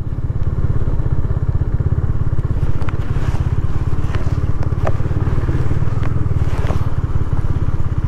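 Motorcycle engine running steadily under way, with a few faint ticks over it.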